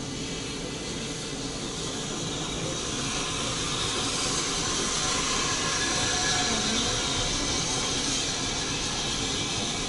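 Narrow-gauge steam locomotive hissing: a steady rush of steam that swells in the middle and eases slightly near the end.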